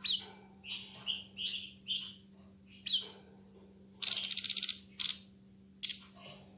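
White-breasted babbler (tepus dada putih, the 'sniper bird') calling: a string of short harsh notes and chirps, and about four seconds in a loud, rapid rattle of sharp clicks lasting under a second, the 'gunshot' song it is known for.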